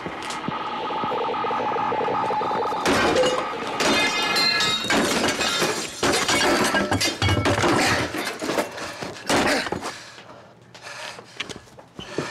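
A military radio set being smashed: a steady hum, then about three seconds in a long run of heavy blows with metallic clanks, cracking and breaking parts, thinning out to a few knocks near the end.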